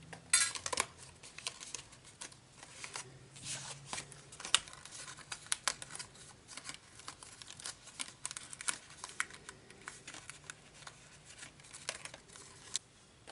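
Paper and a chipboard shape sheet handled by hand: light rustling with a scatter of small clicks and crackles as the pieces are pressed and worked loose.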